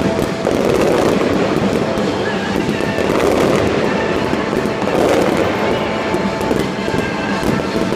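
Aerial fireworks shells bursting in a continuous barrage: booms and dense crackling, overlapping with no break.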